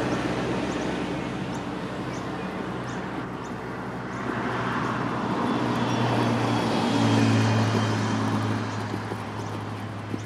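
Steady low drone of a vehicle engine, growing louder about seven seconds in and then fading.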